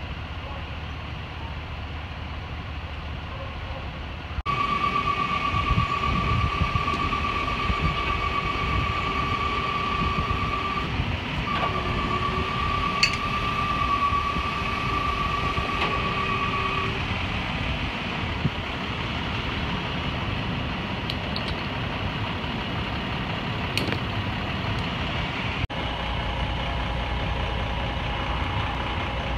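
Heavy fire-truck diesel engines running at idle, a steady low rumble. About four seconds in a steady high whine starts over it, breaks briefly and stops a little past halfway. Near the end a different set of steady tones sounds over the engines.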